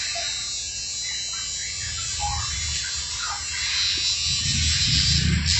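Electric hair clippers buzzing steadily as they trim hair at the back of the head, with a low rumble swelling about four seconds in.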